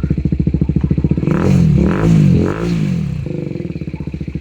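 BMW G310R single-cylinder motorcycle engine, through an aftermarket exhaust, idling with a steady thump. About a second in it is blipped three times in quick succession, pitch rising and falling with each rev, then drops back to idle.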